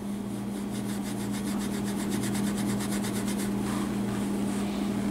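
Super fine steel wool scrubbed back and forth over the painted M1A rifle stock, rasping in quick regular strokes as it takes off loose paint, over a steady low hum.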